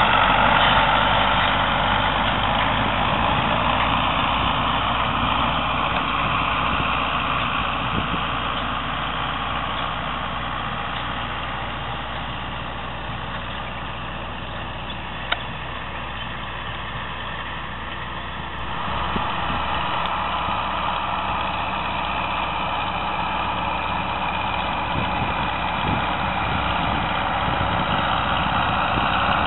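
Farm tractor engine running steadily while pulling a rotary hay rake, fading slowly as it moves off, then suddenly louder again about two-thirds of the way through.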